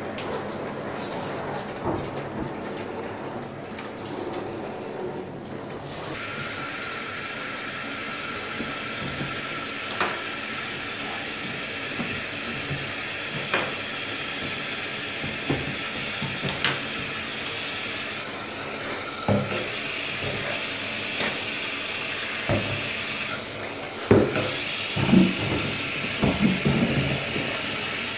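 Water from a handheld shower head spraying and splashing onto a plastic motorcycle airbox in a bathtub while it is scrubbed clean. The spray runs steadily, with occasional sharp knocks of the airbox against the tub and a cluster of louder knocks and splashes in the last few seconds.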